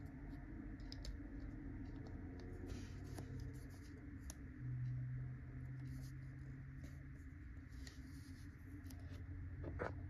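Faint handling noise from a Uni Kuru Toga metal mechanical pencil turned in the fingers: a few small scattered clicks and rubs, the clearest near the end, over a low steady hum.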